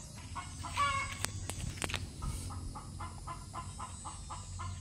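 An animal making a quick, even series of short sounds, about five a second, with one longer pitched call about a second in and a few sharp clicks.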